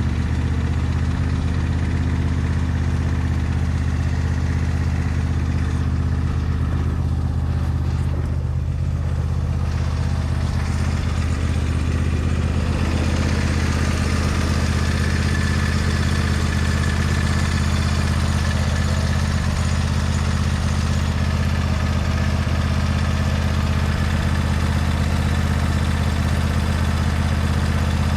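A 2022 John Deere S120 lawn tractor's 22-horsepower 724 cc V-twin engine idling steadily, just after a cold start.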